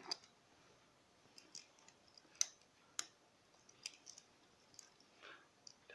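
Faint, scattered clicks and small taps, about a dozen, the sharpest two about two and a half and three seconds in, with near silence between: small handling noises.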